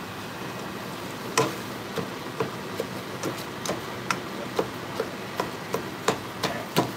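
Red silicone spatula striking a nonstick skillet in quick, repeated knocks, about two to three a second, as it chops sausage slices and ground beef in the pan, over the steady sizzle of the frying meat.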